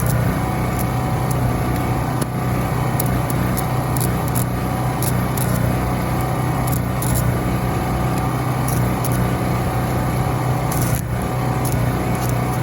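Denyo My Welper 140GSS engine-driven welder generator running steadily at constant speed, a continuous engine drone.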